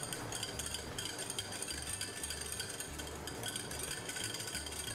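A metal utensil stirring a yogurt-and-cream sauce in a bowl, with many quick, irregular light clinks against the bowl.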